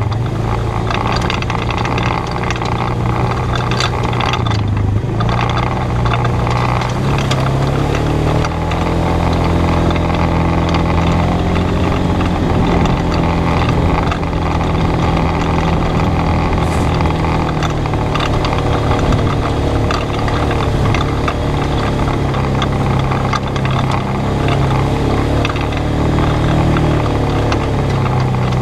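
Polaris RZR 570 side-by-side's single-cylinder engine running under way on a trail. Its pitch climbs about seven seconds in and then holds fairly steady, with small rises and dips.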